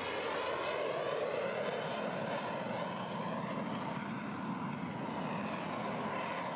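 Steady engine drone of an airplane in flight.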